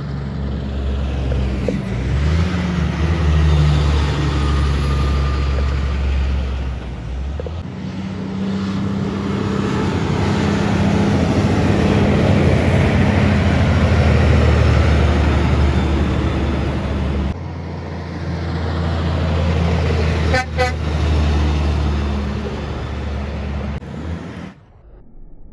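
Heavy diesel trucks driving past one after another, engines running loud and steady, with sudden changes between passes. About twenty seconds in there is a brief horn toot.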